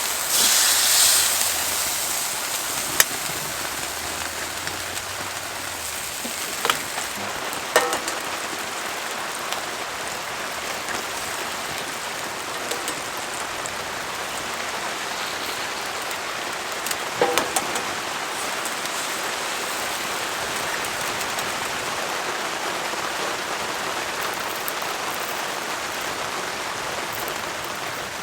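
Steady heavy rain pattering on a tarp overhead, swelling briefly at the start. A few sharp clicks or knocks stand out, about a handful over the stretch.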